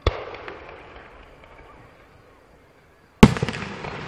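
Two aerial firework shells bursting: a sharp bang right at the start and a louder one about three seconds in, each trailing off with echo and faint crackles.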